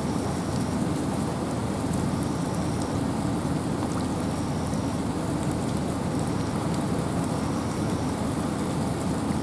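Steady rain with wind in a forest: a dense, even low rushing with scattered drop ticks. Faint short high notes recur every second or so.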